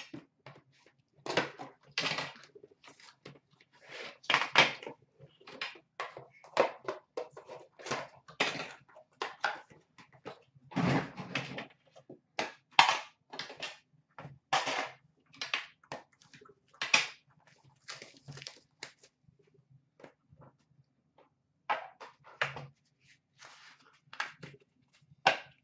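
Shrink-wrap crinkling and tearing as a sealed box of hockey cards is unwrapped, along with the rustle and knocks of the cardboard box being handled and opened: irregular sharp crackles, denser around the middle, with a quieter stretch near the end.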